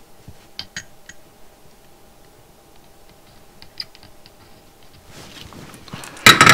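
Faint scattered ticks and clicks of soldering work on a perfboard over a faint steady hum, then a loud brief clatter of handling near the end as the board in its holder is moved.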